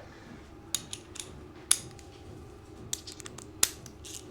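Irregular sharp metallic clicks and clinks of hand tools against the mower's engine while its cover bolts are undone, over a faint steady hum.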